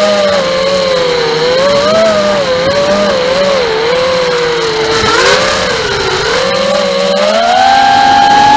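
Brushless motors and propellers of a Furibee Darkmax 220 racing quadcopter in flight, a whine whose pitch wavers up and down with the throttle. It climbs to a higher, held pitch near the end.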